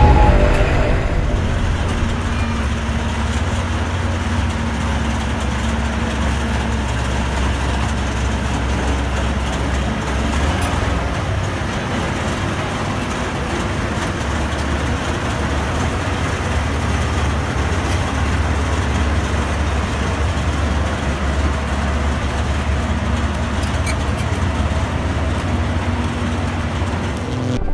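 Tracked tank styled as a WWII German Panther driving slowly, its engine running with a steady low rumble.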